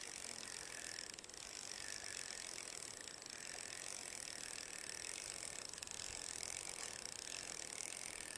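Spinning reel cranked during a lure retrieve, its gears whirring faintly and swelling about once a second with each turn of the handle.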